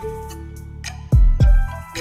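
Music with held keyboard-like notes, then two deep kick drum hits a little past a second in.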